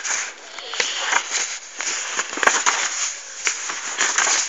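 Dense rustling crackle with many sharp little clicks, the sound of something being handled close by.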